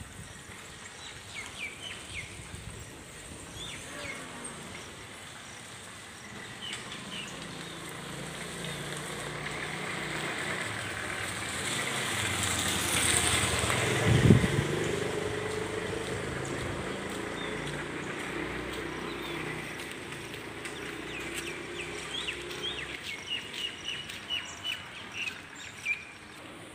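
Street ambience: a motor vehicle passes, swelling over several seconds and fading away, with one heavy thump at its loudest point about fourteen seconds in. Birds chirp through it, most often near the end.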